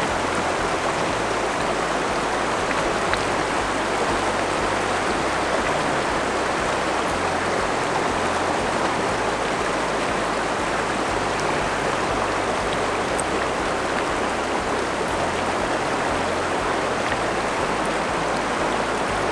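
Fast river rapids rushing over rocks: a steady, even wash of water.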